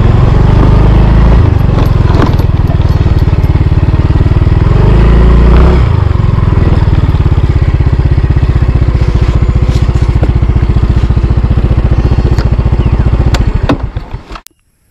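Yamaha motor scooter's small engine running steadily while riding, under a heavy low rumble of wind on the microphone. The sound fades away about a second before the end, leaving near silence.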